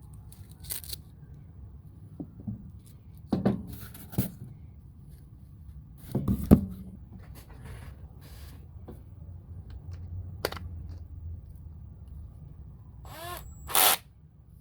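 Handling of a drill brush attachment set's plastic parts: scattered clicks, taps and scrapes, the loudest knock about halfway through and a short scratchy swish near the end.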